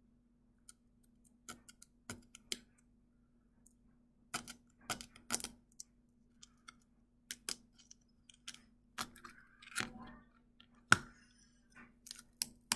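A needle scratching and tapping at a brittle sugar honeycomb (dalgona) candy to free the shape: irregular sharp clicks and short scrapes, sometimes several in quick succession.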